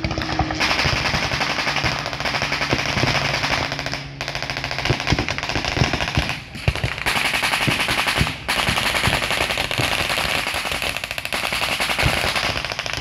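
Re-enactors' blank gunfire in a mock battle: many guns firing in rapid, near-continuous bursts, with short lulls about four, six and a half, and eight and a half seconds in.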